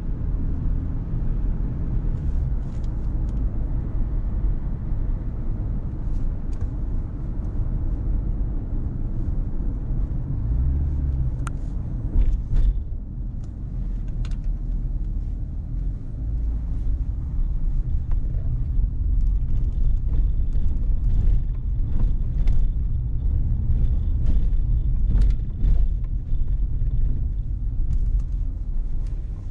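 Steady low rumble of a car driving on city streets, road and engine noise, with scattered short clicks and knocks over it.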